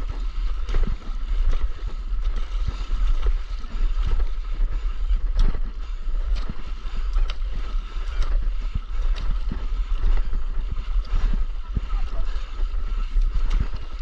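Wind rumbling over the microphone, with water sloshing and splashing from paddle and oar strokes, and irregular small knocks.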